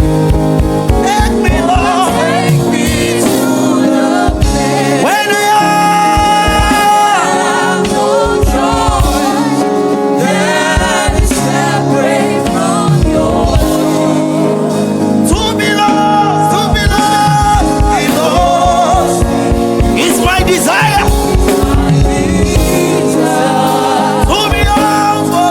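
Gospel worship music with a singing voice over held chords and a steady low beat.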